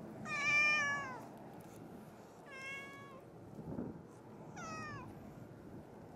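Stray cat meowing three times up close: a loud, drawn-out first meow, then two shorter ones, each dropping in pitch at the end.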